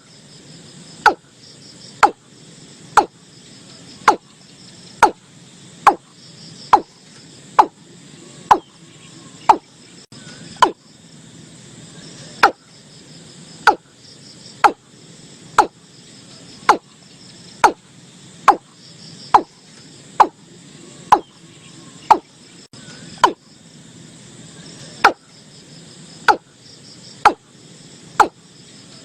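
Watercock calling: a long series of short, sharp notes about one a second, pausing briefly twice. Crickets chirp faintly and steadily behind it.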